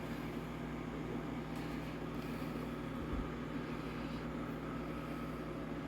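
Steady low hum under an even hiss, unchanging throughout: room tone.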